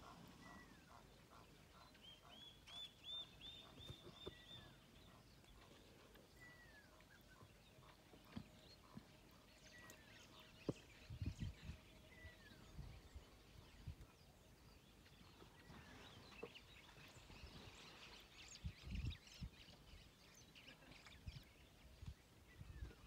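Faint outdoor quiet with wild birds calling: a short downward-sliding whistle repeats every few seconds, and about two seconds in there is a quick run of about ten rising chirps. A few low thumps come in around the middle and near the end.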